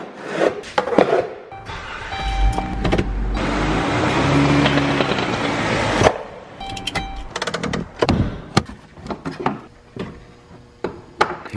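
Background music, with a Chrysler Town & Country minivan's engine running for a few seconds in the middle as it is driven up onto car ramps; the engine sound cuts off sharply about six seconds in.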